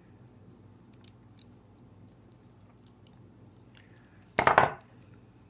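Faint clicks of a thin metal rod and small hand tools being handled, with one short, loud burst of noise about four and a half seconds in.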